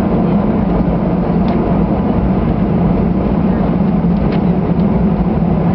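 Airbus A320 cabin noise: a steady jet-engine drone over a low rumble.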